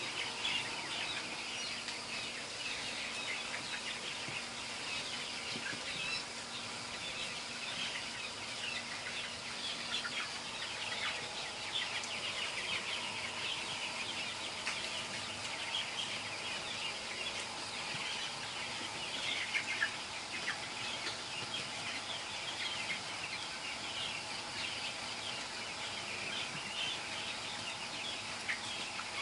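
A flock of 15-day-old broiler chickens with chronic respiratory disease (CRD) peeping and cheeping continuously, many short calls overlapping at a steady level.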